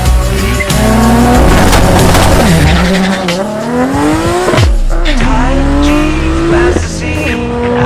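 A Nissan Skyline R34's engine revving hard as the car accelerates away from the line. Its pitch climbs and then drops sharply at each gear change: about two and a half seconds in, just before five seconds, and near the end. Music plays alongside.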